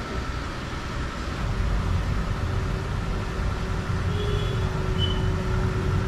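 Steady low rumble of background noise with a faint steady hum, and two short high beeps about four and five seconds in.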